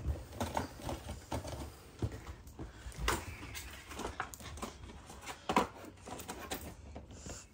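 Handling noise from a doll and its loose parts being handled: irregular small clicks, taps and rustles, with two louder knocks about three seconds in and about five and a half seconds in.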